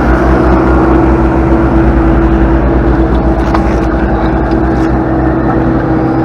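Skid steer's diesel engine running steadily with an even low throb, working at packing stone and clay.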